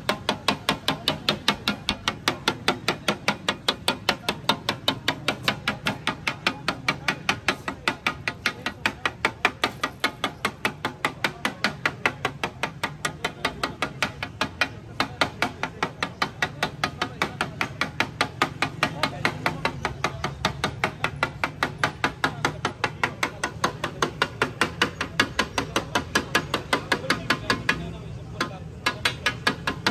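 Flat metal spatula rapping and scraping on a huge tawa griddle as a heap of frying onions is chopped and turned, a fast even clatter of about four strikes a second. It breaks off briefly near the end.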